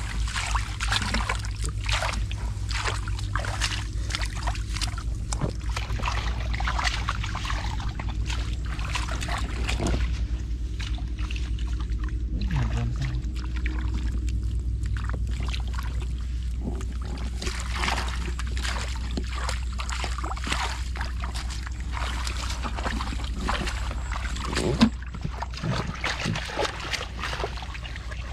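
Hands splashing and sloshing through shallow muddy water while groping for fish, a long run of short irregular splashes with one sharper hit about 25 seconds in, over a steady low rumble.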